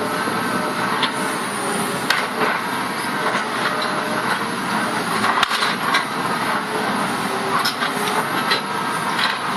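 Demolition excavator breaking up a concrete motorway bridge: continuous crunching and clattering of concrete and rubble, with many small knocks and faint metallic squeals.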